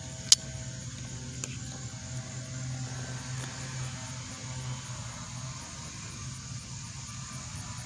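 Clicks from handling a T4E TPM1 pistol as it is loaded: one sharp, loud click about a third of a second in and a fainter one about a second and a half in, over a steady low hum.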